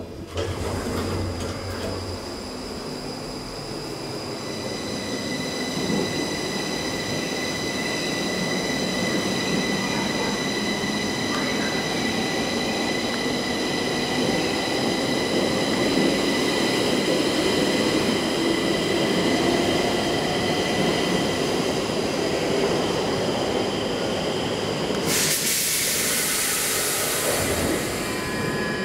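Stockholm metro train moving along the platform: motor whine with several steady high tones over wheel-on-rail noise, growing louder over the first half. Near the end comes a loud hiss lasting about two seconds.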